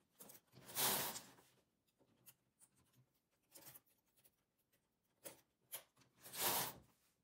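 Hands handling knitted fabric and stitches on a knitting machine's needle bed. There are two brief rustling swishes, about a second in and near the end, with faint light clicks between them.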